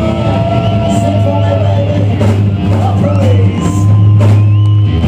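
Live rock band playing loudly: electric guitars and bass holding long notes over drums, with a singer's voice.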